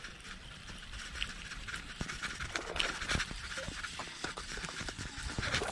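Baitcasting reel being wound and rod handled while a hooked small bass is brought in, giving irregular clicks and knocks, with wind rumbling on the microphone.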